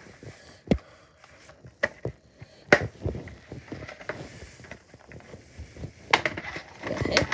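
Scattered light taps and knocks: a few single ones in the first three seconds, then a quick run of them near the end.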